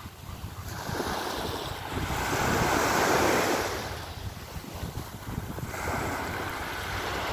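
Small sea waves breaking and washing up on the shore, the wash swelling about two to three seconds in and again near the end. Wind rumbles on the microphone underneath.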